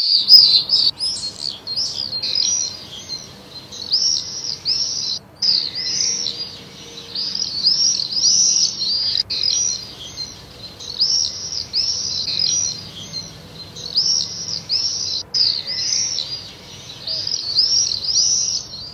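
A flock of swifts screaming in flight: many short, shrill calls in quick, overlapping runs that come and go every second or two.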